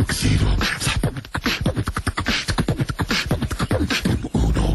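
A man beatboxing: a fast run of clicks, hisses and deep bass kicks made with the mouth, dubbed as a comic voice over animal footage.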